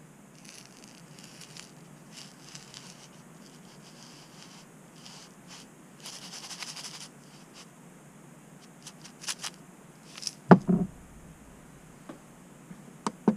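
A glass vial of placer gold being handled: gold flakes slide and rattle inside it, most densely about six seconds in. About ten seconds in it is set down on a stainless steel table with a sharp knock, followed by a few light clicks near the end.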